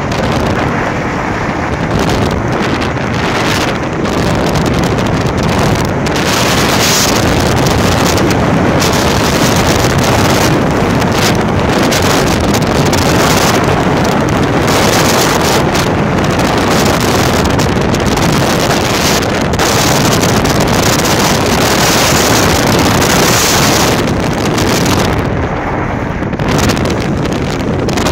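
Wind buffeting the microphone over the engine and tyres of a 1995 Holden VS Commodore sliding on a dirt road. It is a loud, dense rush with no clear engine note standing out.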